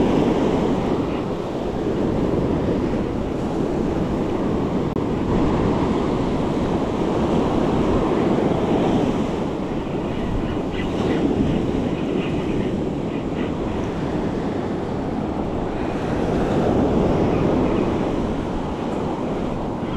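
Ocean surf breaking and washing up a sandy beach, swelling and easing every few seconds, with wind buffeting the microphone.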